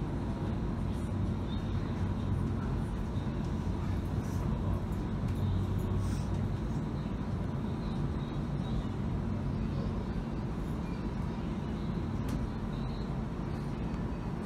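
Bombardier Flexity Freedom light rail vehicle running, heard from inside the passenger cabin: a steady low rumble with a faint steady whine. It eases slightly near the end as the car slows into a station.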